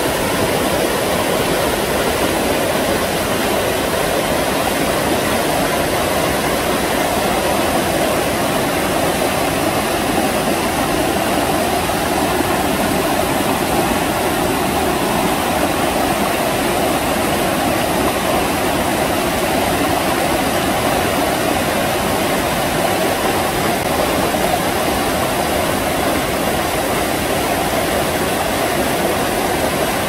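Mountain stream rushing over boulders in small cascades: a steady, loud rush of falling water.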